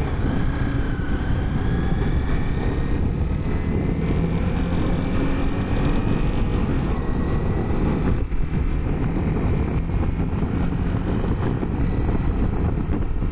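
Honda CBR250R's single-cylinder engine running steadily while riding, with wind noise on the microphone; the engine's pitch drifts slightly, and the sound briefly dips about eight seconds in.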